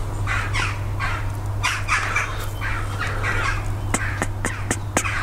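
Repeated rasping scrapes, a few a second, of a hand tool worked inside an engine crankcase, then a quick run of sharp ticks and taps about four seconds in.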